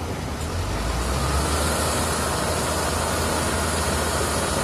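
Heavy diesel machinery running steadily with a deep, even hum: a tractor powering a transit mixer drum beside a truck-mounted concrete pump, a little louder about a second in.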